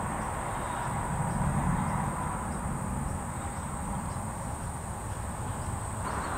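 Steady high-pitched chorus of insects, crickets or cicadas, over a low background rumble of noise that swells slightly about a second in.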